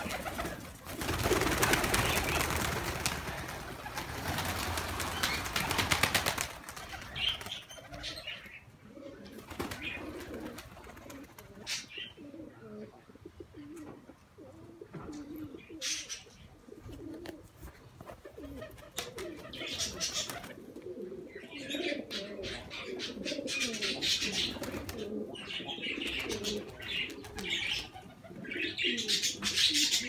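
A flock of domestic pigeons flapping their wings loudly as they take off, for about the first six seconds. Then the pigeons coo repeatedly, with short flurries of flapping here and there, more of them near the end.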